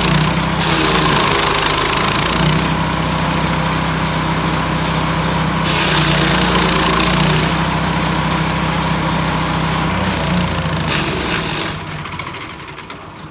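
Small portable wood chipper's engine running steadily, with several bursts of loud rasping noise as branches are fed through and chipped. Near the end the engine stops and the sound dies away.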